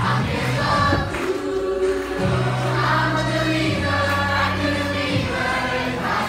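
Stage musical cast singing together as a chorus over instrumental accompaniment, with a low bass line holding long notes that change about every second.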